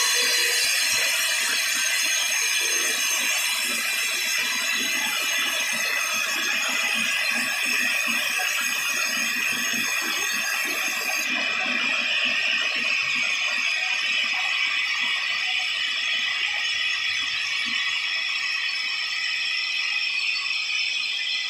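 Sawmill band saw cutting through a long teak log on its carriage: a steady machine noise with several held high tones.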